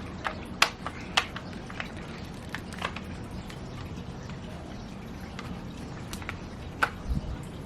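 Scattered sharp clicks and knocks from an Umarex T4E HDS68 CO2 shotgun being worked by hand to puncture and charge its CO2 cartridge, which is not charging. A low thump comes near the end.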